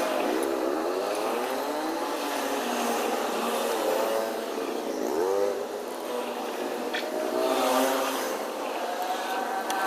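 Small motorbike engines running and revving, their pitch dipping and rising several times.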